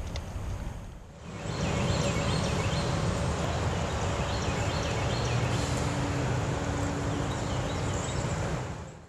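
Steady outdoor rushing noise with a low steady hum, over which a bird chirps in short repeated phrases; it starts abruptly about a second in and stops abruptly just before the end.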